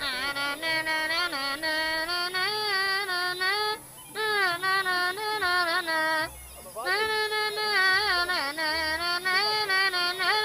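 A single high voice singing a slow, heavily ornamented Greek folk song, the melody wavering and bending within long held phrases. It breaks off briefly twice, about four and six seconds in.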